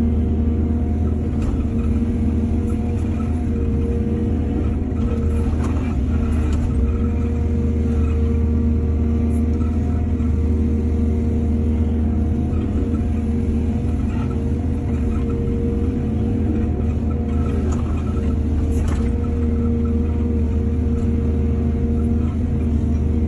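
Heavy diesel engine of an excavator running steadily, with a deep low drone, and a few brief clanks about five to seven seconds in and again near nineteen seconds.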